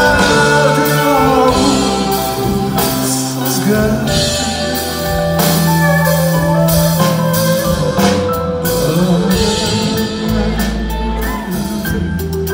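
Live band playing an instrumental stretch of a song, with long held notes and drum hits that grow more frequent in the second half.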